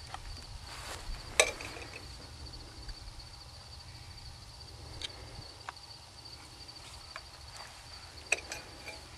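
Light clicks and knocks of PVC pipe fittings being handled and pushed together while gluing an elbow, the sharpest about a second and a half in and again near the end, over a steady high-pitched drone.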